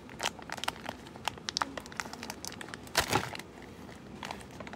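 Tight plastic packaging crinkling and crackling as fingers squeeze and pry at it to get it open, with one louder crackle about three seconds in.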